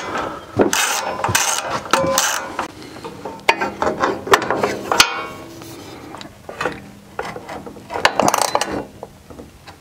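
Socket ratchet wrench clicking in quick runs as bolts on the drum sander's lower cover are worked loose, with a quieter stretch in between and a last run near the end.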